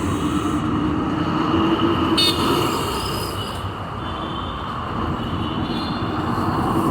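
Steady road-traffic and vehicle running noise, with a short high-pitched sound about two seconds in.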